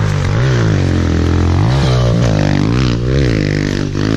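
Kawasaki KLX pit bike's single-cylinder four-stroke engine running hard close by, its revs rising and falling several times.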